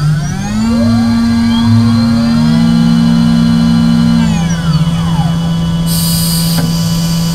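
CNC machining centre spindle running with through-tool coolant spraying: a steady motor hum and whine, some tones gliding up and then down in pitch, and a short burst of hiss about six seconds in.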